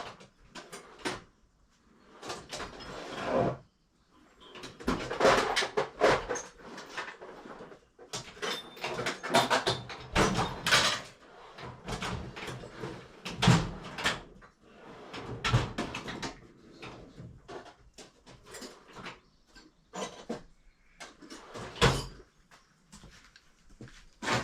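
Tools and metal parts being handled and worked: an irregular clatter of knocks, clicks and scrapes, with a few heavier thumps.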